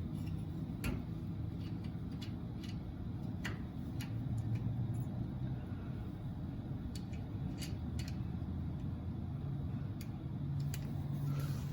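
Light, irregular clicks and ticks over a steady low rumble: hands working a garage door safety sensor, turning its wing nut and shifting the sensor in its bracket to bring it into alignment.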